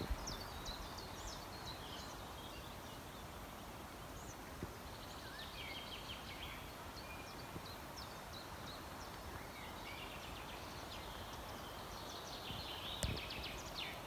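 Several small birds singing and chirping, with short high calls and a couple of quick trills, over a faint, steady outdoor hush.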